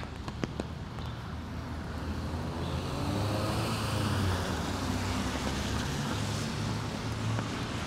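A car driving by on a rain-wet street, its tyre hiss and engine swelling to the loudest about three to four seconds in, then slowly fading.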